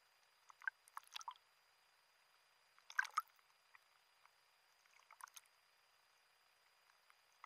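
Near silence broken by a few faint, brief splashes and gurgles of small sea waves washing around a diver's head at the surface, the clearest about three seconds in.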